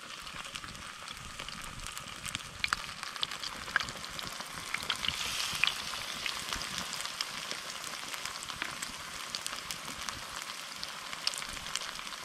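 Battered fish fillets frying in hot oil in a frying pan over a campfire: a steady sizzle with scattered sharp pops. The sizzle swells around four to six seconds in as a second fillet goes into the oil.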